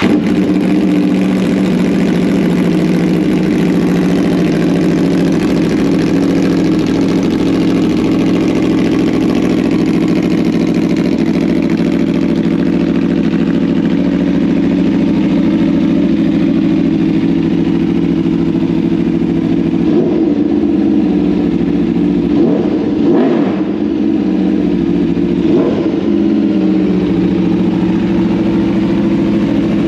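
Aprilia RSV4 V4 engine idling steadily through an SC-Project carbon slip-on exhaust, just after start-up, with three short throttle blips about two-thirds of the way through.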